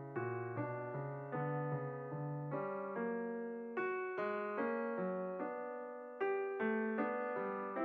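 Background piano music: notes struck about every half second, each fading away after it sounds.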